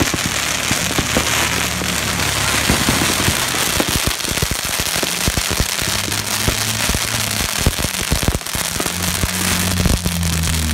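Strings of firecrackers going off in a rapid, continuous crackle of bangs and pops, with a few louder bangs standing out near the end. Low steady tones run underneath at times.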